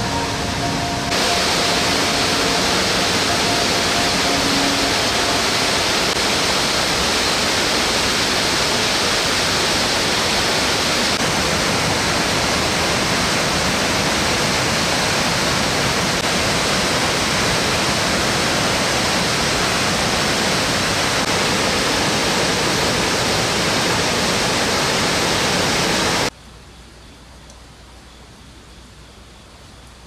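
Steady rush of water from a broad waterfall, an even full-range noise. About 26 seconds in it drops suddenly to a much quieter hiss.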